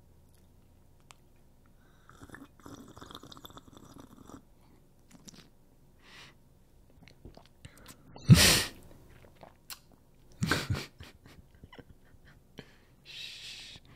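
Coffee being sipped and slurped from mugs close to the microphones, then two short, loud vocal bursts about eight and ten seconds in, and breathy laughter near the end.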